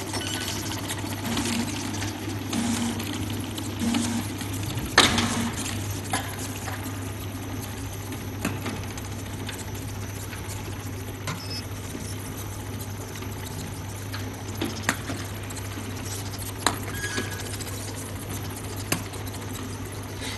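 Automatic bottle labeling machine running, with a steady low hum. Sharp clicks and knocks come every few seconds as glass bottles are carried through, the loudest about five seconds in.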